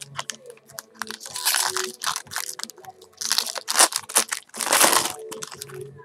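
Foil wrapper of a baseball card pack being torn open and crinkled by hand, in three main bursts of crackling with smaller crinkles between.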